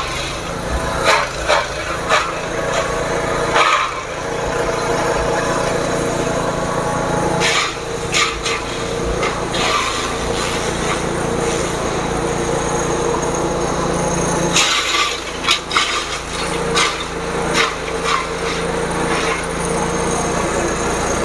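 An engine-driven forage chopper running steadily while its blades cut plant material, with sharp crunches and cracks as pieces are chopped: several in the first few seconds, two a little before the middle, and a cluster in the latter part.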